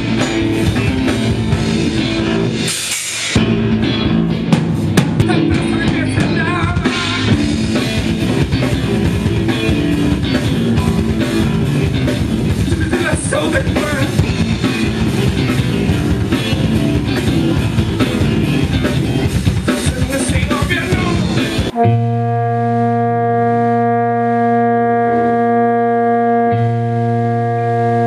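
Live rock band playing: electric guitar, bass guitar and drum kit, loud and busy. About 22 seconds in it cuts abruptly to a steady drone of several held notes.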